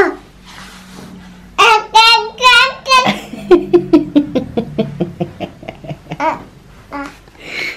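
A baby's high, wavering squeals and babble, then a run of short chuckling laughs, about four or five a second, that drop in pitch and trail off.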